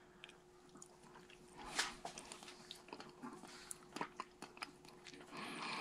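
Faint, wet chewing and mouth noises, with small lip and tongue clicks, of a person eating a soft, creamy piece of thawed Monthong durian; the chewing starts about a second and a half in.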